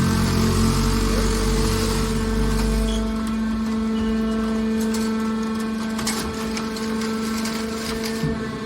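Hydraulic scrap-aluminium baler running: a steady hum from its motor and pump, with a heavy low rumble that drops away about three seconds in, and a few sharp clicks later.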